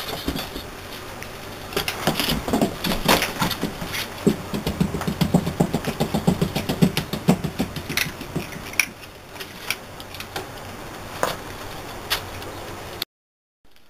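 Puppies play-fighting on a blanket: scuffling and rustling with sharp clicks, and a low, rapid growl lasting a few seconds in the middle. The sound cuts out for a moment near the end.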